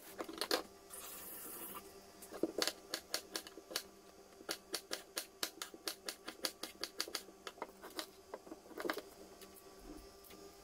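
Kitchen knife chopping tomatoes on a wooden cutting board: a run of sharp taps of the blade on the board, about three a second.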